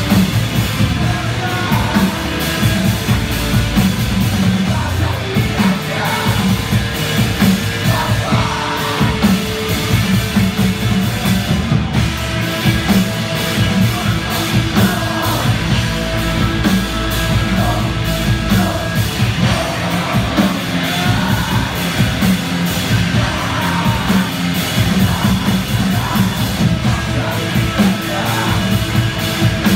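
Loud live rock band playing: electric guitars and a drum kit, with shouted vocals.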